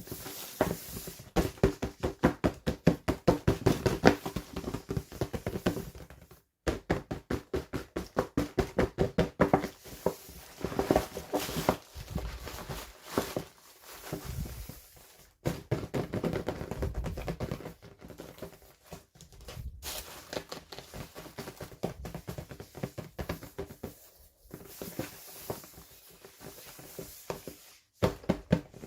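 Quick runs of tapping, clicking and rustling from hands handling and opening toy packaging, stopping briefly now and then.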